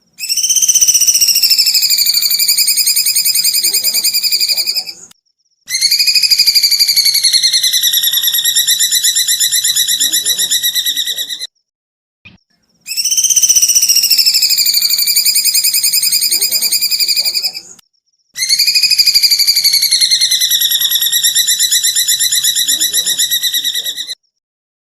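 A caged songbird's rapid, even trill, pitched high and held in four long phrases of about five seconds each with short pauses between. Each phrase starts a little higher, dips, then holds steady. The third and fourth phrases repeat the first two exactly, as a looped recording would.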